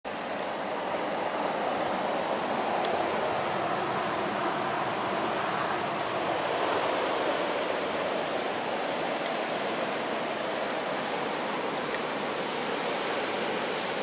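Very high blizzard winds blowing hard, a steady rushing noise with no letup.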